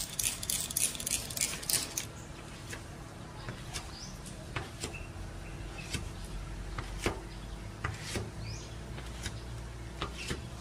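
Rubber squeegee drawn in quick strokes across wet car glass during the first two seconds, each stroke a short sharp scrape. After that come a few scattered light clicks over a low steady hum.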